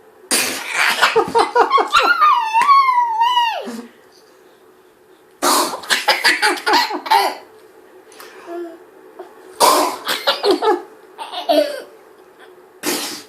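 A baby boy laughing hard in several bursts of pulsing belly laughs, with a high squeal near the start. Between the bursts a man makes playful pretend sneezes.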